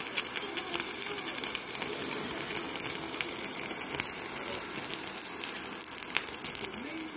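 Handheld butane kitchen torch hissing steadily as its flame plays on a cracker topped with meat and cheese, with many small crackles throughout.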